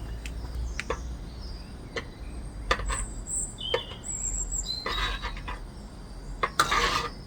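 Scattered light metal clicks and two short scraping noises from handling a saucepan of thickening paste, with birds chirping in the background.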